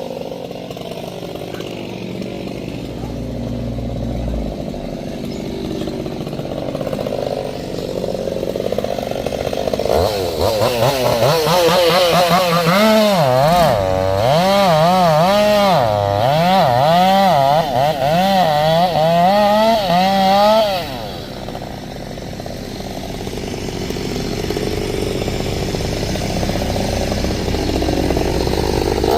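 Chainsaw engine running steadily, then revved high for about ten seconds in the middle with its pitch rising and falling over and over, then dropping back suddenly to a lower, steady run.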